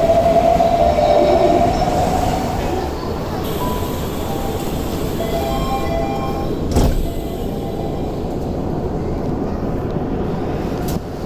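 Toei Mita Line subway train: a rising electric whine over the first couple of seconds, then steady train rumble, with one sharp knock about seven seconds in.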